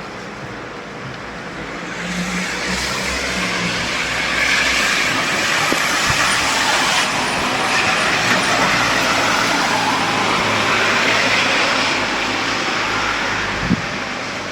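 Rain, with a vehicle driving by on the wet road: the hiss of its tyres swells from about two seconds in and eases off near the end, with a brief knock shortly before the end.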